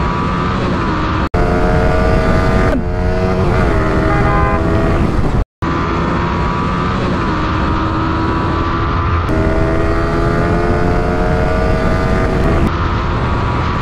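Yamaha 155 cc single-cylinder sport-bike engine accelerating at full throttle through the gears, heard on board at speed with wind rush. The engine note climbs in each gear and drops back at several upshifts, and the sound cuts out for an instant twice.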